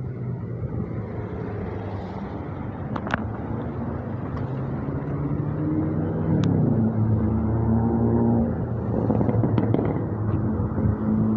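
Road traffic at a busy intersection: vehicle engines running steadily, with one engine's pitch dropping about two-thirds of the way through, and a few sharp clicks.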